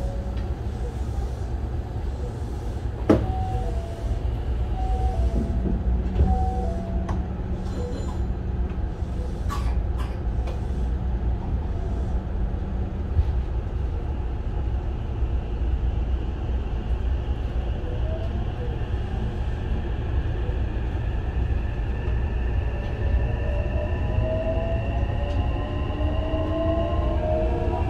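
Interior running noise of a Hankyu 9000 series electric train: a steady rumble of wheels on rail, with a sharp knock about three seconds in. In the last few seconds the whine of the Toshiba IGBT-VVVF inverter and traction motors rises, several tones gliding in pitch together.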